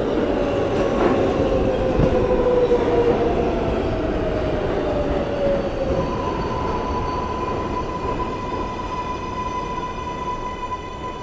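New York City Subway 7 train pulling into a station and slowing, its wheels rumbling on the rails. A whine falls slowly in pitch for the first half, then a steady higher whine takes over from about six seconds in.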